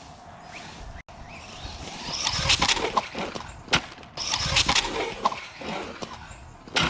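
Small electric RC car driving on pavement, its tyres rolling and scrubbing, with several sharp clacks as the chassis knocks and bounces.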